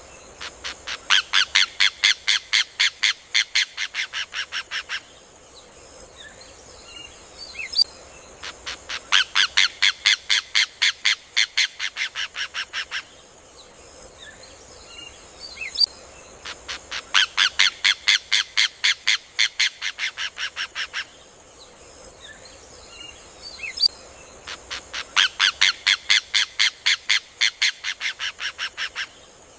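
Rufous hornero (João de Barro) song: loud bouts of rapid, sharp repeated notes, about four a second, fading toward the end of each bout. Each bout is led by a single note, and the bouts come four times, about eight seconds apart.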